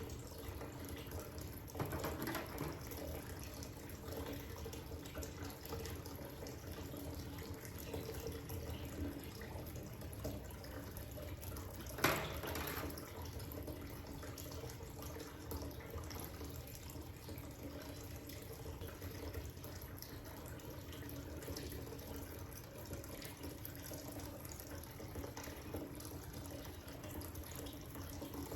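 Steady rushing background noise with a faint low hum underneath, broken by one sharp click about twelve seconds in.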